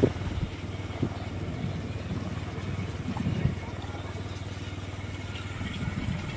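A vehicle running at a steady pace along a dirt lane, heard from on board: a steady low engine hum under road noise.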